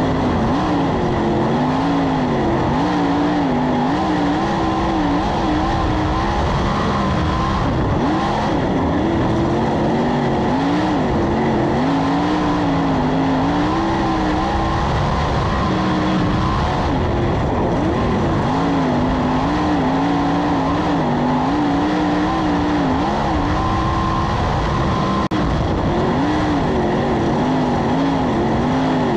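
On-board sound of a 410 sprint car's methanol-burning V8 running at race speed, heard from the cockpit; the engine note keeps rising and falling as the throttle is worked, over a constant rush of noise.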